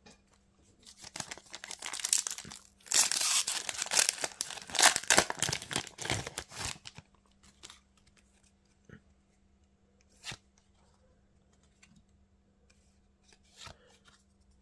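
A One Piece trading card booster pack's foil wrapper being torn open and crinkled, the tearing and crackling loudest in the middle stretch, followed by a few light clicks as the cards are handled.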